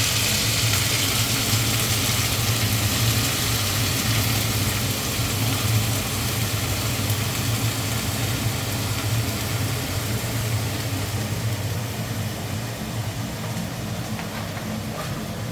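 Food sizzling in hot oil in a kadhai, the hiss loudest at first and slowly dying down, over the steady hum of a kitchen chimney's exhaust fan.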